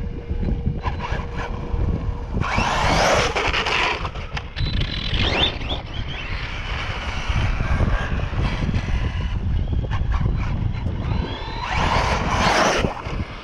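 Electric RC monster trucks driving on asphalt: motors whining and tyres scrubbing over a steady low wind rumble on the microphone, with two louder bursts of acceleration a few seconds in and again near the end.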